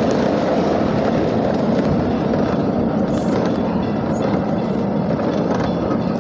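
Ride-on miniature railroad train rolling along its track: a steady rumbling noise from the moving cars.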